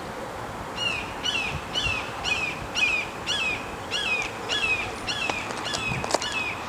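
A bird calling a steady series of short, sharp, downward-slurred notes, about two a second, starting about a second in and stopping near the end.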